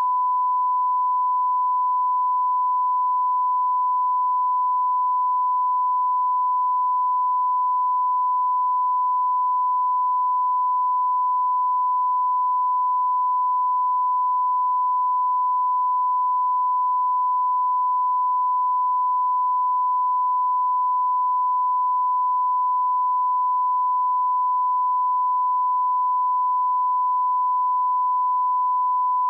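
Broadcast line-up tone: a steady 1 kHz sine reference tone played with colour bars at the head of a programme tape, holding one unbroken pitch at a constant level.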